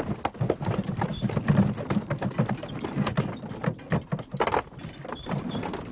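Horses' hooves clip-clopping at a walk on stone paving, a dense, irregular run of clops.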